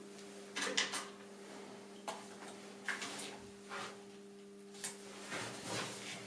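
Small clicks and knocks of a cordless drill and screw being handled as a screw is set on the bit, spaced about a second apart, over a faint steady hum. The drill's motor does not run.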